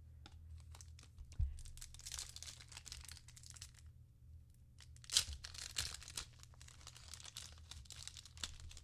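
Trading card pack wrapper crinkling and being torn open by hand, in two stretches of rustling about a second or two each, with a soft thump about a second and a half in.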